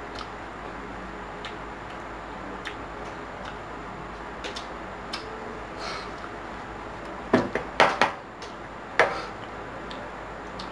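Metal spoon and fork clicking and scraping on a plate while eating, with a few sharper, louder clinks about seven to nine seconds in, over a steady low hiss.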